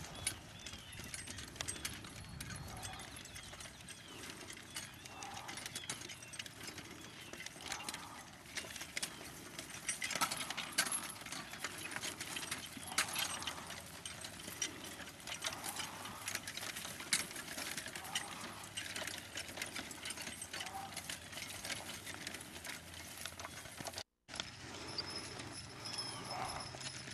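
Hooves of a draft team pulling a plow, clopping irregularly, with scattered sharp clicks and clinks from the harness and rigging.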